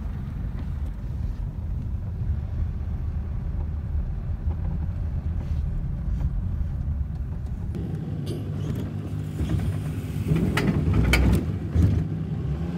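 Low road and engine rumble of a moving car, heard from inside the cabin, with a few louder knocks and rattles in the last few seconds.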